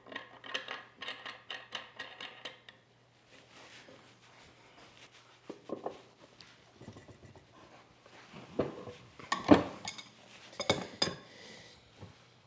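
Steel washer and hex nut clinking as they are spun by hand onto a threaded steel rod, a quick run of small metallic ticks in the first few seconds. Several louder metallic knocks follow in the second half as an adjustable wrench is fitted to the nut.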